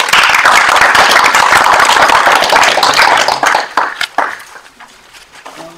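A small group of councillors applauding around a meeting table: dense, loud clapping that dies away about four seconds in.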